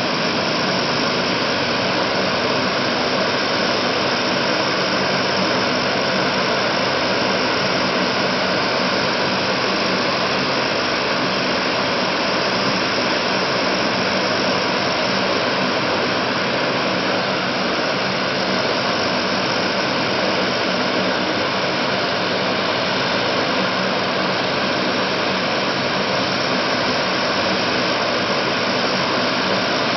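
The four Allison T56 turboprop engines of a Lockheed C-130 Hercules running steadily, loud and unchanging, with the whine of the turbines and the drone of the propellers.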